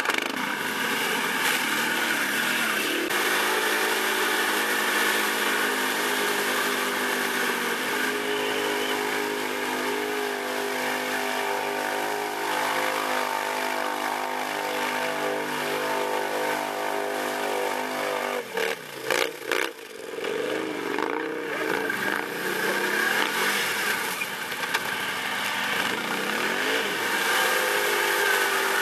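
ATV engine running at a steady speed for a long stretch, then revving up and down, with the sound dropping out briefly a couple of times about two-thirds of the way through.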